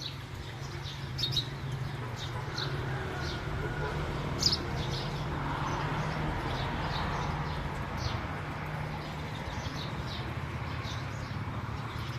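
Birds chirping in short, scattered high calls, over a steady low rumble.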